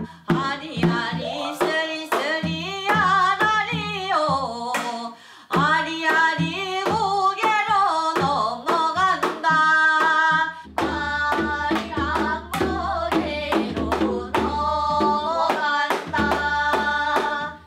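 A woman singing a Korean folk song in a bending, sliding style, accompanied by hand- and stick-struck traditional Korean drums. The drumming grows denser from about eleven seconds in.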